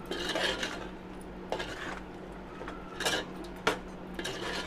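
Long steel spoon scraping and knocking against an aluminium cooking pot in a run of separate strokes, as mutton and tomato masala is stirred and fried.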